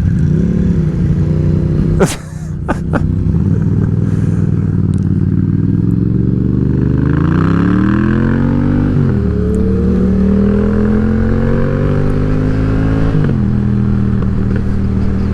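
Yamaha XSR700 motorcycle's parallel-twin engine under way. The revs climb twice as the bike accelerates, each time falling sharply at a gear shift (about nine seconds in and again near thirteen), then the engine runs steadily. There is a single sharp click about two seconds in, and wind rushes over the microphone while it accelerates.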